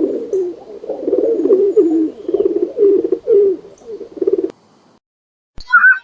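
Pigeon cooing, a run of low rolling coos that stops about four and a half seconds in. Near the end a sharp click is followed by a short, higher-pitched bird call.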